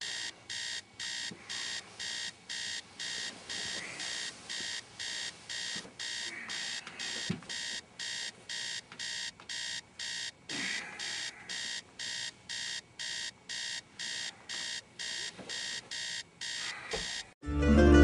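Electronic alarm clock beeping rapidly and evenly, about two and a half high-pitched beeps a second, until it cuts off suddenly near the end. Plucked-string music then starts.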